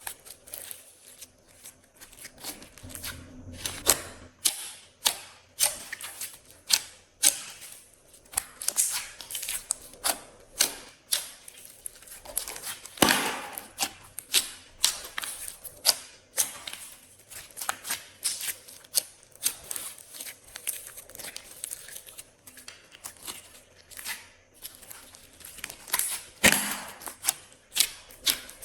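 Glossy slime being mixed and squeezed by hand, making sticky pops and crackles about once or twice a second, with a louder crackling squish near the middle.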